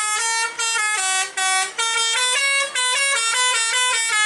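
Tour bus telolet basuri horn, a set of musical air horns, playing a quick tune of short stepped notes with a few brief breaks between phrases.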